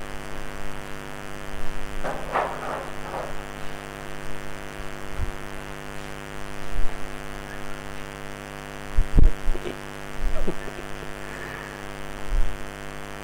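Steady electrical mains hum, with scattered knocks, scrapes and low thumps from green plastic chairs being carried off and set down; a scraping cluster about two seconds in and the heaviest thump about nine seconds in.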